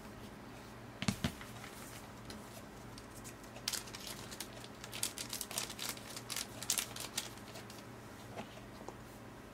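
A smartphone set down on a table with a light knock about a second in, then several seconds of crinkling and crackling from packaging being handled, with a few small ticks near the end.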